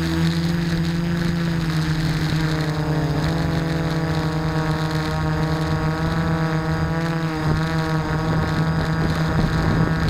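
Quadcopter's electric motors and propellers whining in flight: several pitched tones that shift up and down as the motor speeds change.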